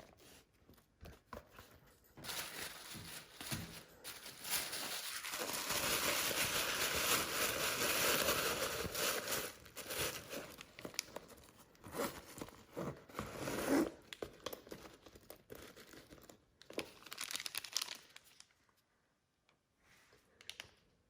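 Packaging crinkling and rustling as it is handled, continuous for several seconds, then in short bursts, and dying away near the end.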